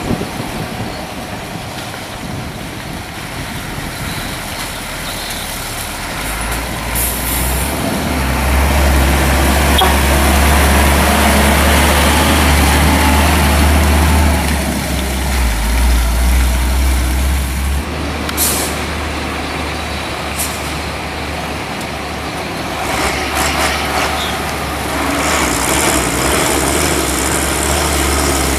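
Heavily loaded logging trucks' diesel engines pulling past close by on a dirt road, a deep engine rumble that swells to its loudest in the middle and builds again near the end as the next truck comes. Short sharp hisses of air brakes cut in a few times.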